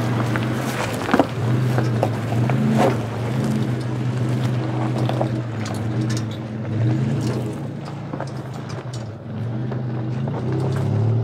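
Pickup truck engine running at low speed as the truck crawls over a rocky dirt trail, with a few crunches and knocks from the tyres rolling over stones.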